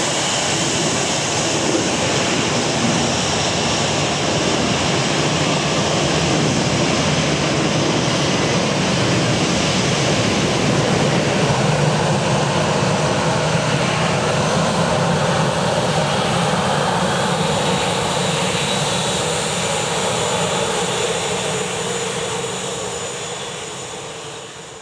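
Boeing 757 jet engines running with a steady, loud roar that fades away over the last few seconds.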